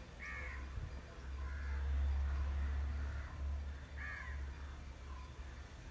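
Three short bird calls in the background, the first right at the start and the others about a second and a half and four seconds in, over a low rumble that swells in the middle.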